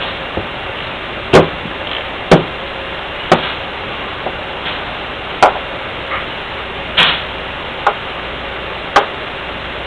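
Tools and metal injection pump parts being handled during disassembly: sharp knocks and clicks, about seven loud ones spaced irregularly roughly a second apart, with fainter taps between, over a steady hiss.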